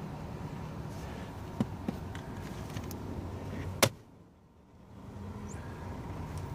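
Light clicks and one sharp click of plastic car-seat trim being handled by a gloved hand, over a low steady rumble; just after the sharp click, nearly four seconds in, the sound drops away for about a second.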